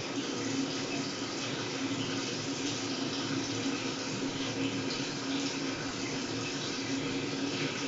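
Sharp ES-KS70K-P top-loading washing machine running, with a steady rush of water and a low steady hum.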